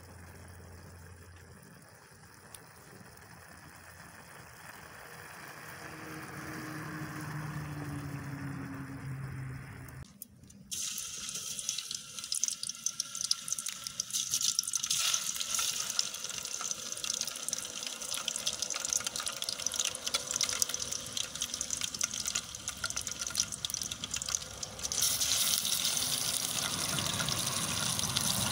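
Pieces of fish sizzling and crackling as they fry in hot oil in an aluminium pot over a wood fire. The sizzling starts suddenly about ten seconds in and gets louder near the end; before it there is only a soft hiss with a faint low drone.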